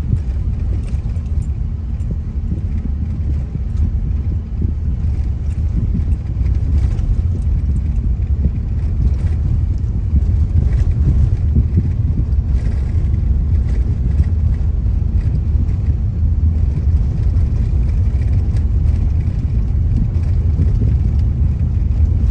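Road noise inside a moving car: a steady low rumble of engine and tyres on a rough, unpaved road at moderate speed, with scattered light clicks and rattles, most of them in the first half.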